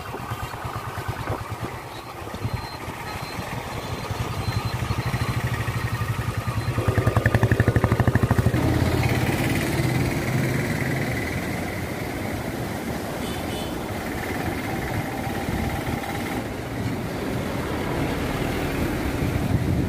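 A motor vehicle's engine running with a steady pulsing hum, getting louder between about seven and nine seconds in.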